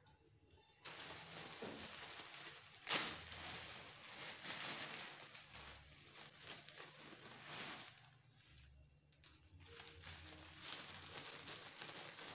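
Thin plastic bread bag crinkling and rustling as it is handled and the sliced loaf is pulled about in it, with a sharper crackle about three seconds in.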